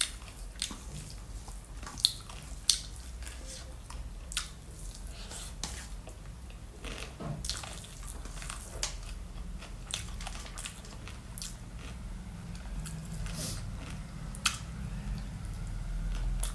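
Close-miked eating sounds: irregular wet clicks, smacks and small crunches of chewing, over a steady low hum.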